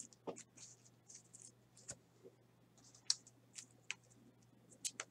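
Baseball trading cards being handled: a stack of cards shuffled through in the hands and set down in piles on the table, giving faint, irregular clicks and swishes of card edges.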